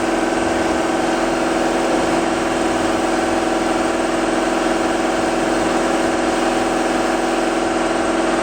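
1978 Camaro Z28's 350 V8 idling steadily.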